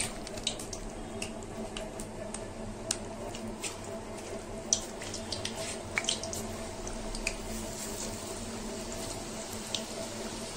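Onion pakoras in gram-flour batter deep-frying in hot oil in a steel kadhai: a steady sizzle with scattered pops and crackles, over a faint low hum.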